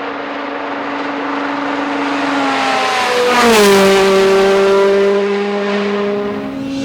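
Rally car at speed approaching and passing close by. Its engine note holds steady as it comes in, drops in pitch as it goes past about three and a half seconds in, and then fades away.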